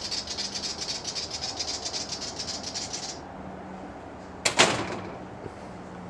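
A willie wagtail gives its rapid, ticking scolding chatter, about ten notes a second, for about three seconds. This is its alarm call while it mobs a Brown Goshawk. Later, a door clacks once loudly.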